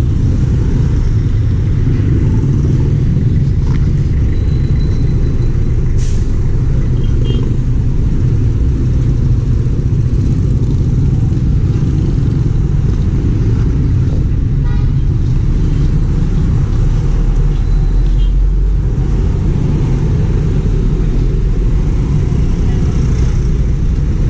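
Steady low rumble of motor traffic heard from a moving vehicle: engine and road noise with no change in pace, and a single sharp click about six seconds in.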